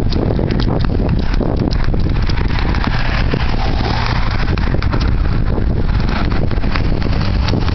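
Wind buffeting the microphone: a loud, steady low rumble with scattered short clicks.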